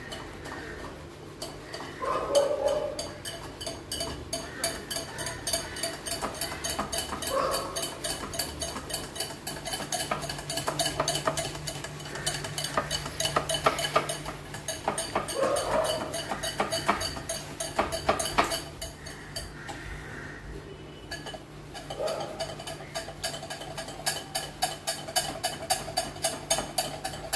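A whisk beating a crushed-Oreo and milk cake batter in a ceramic bowl, with rapid, steady clinking against the bowl that pauses briefly a little after the middle. A few short, faint cries come through now and then.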